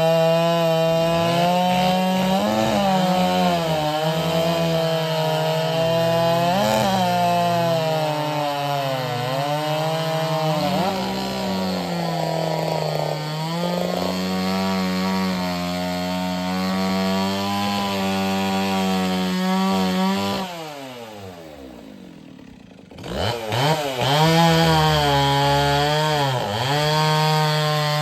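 Modified two-stroke race chainsaws at full throttle cutting through a log, the engine note dipping and recovering under load. About twenty seconds in the note falls and quietens, then a saw revs back up a couple of seconds later.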